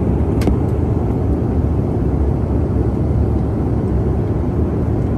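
Steady low cabin noise inside a CRJ-700 climbing after takeoff: airflow and the rear-mounted GE CF34 turbofan engines. A brief click about half a second in.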